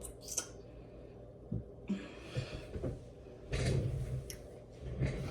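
A person breathing out heavily and making a low hum, with small clicks and knocks of handling scattered through.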